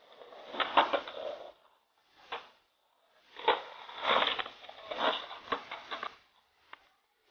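Skateboards rolling and clacking: irregular bursts of wheel rumble with sharp knocks of boards hitting the ground, separated by brief quiet gaps.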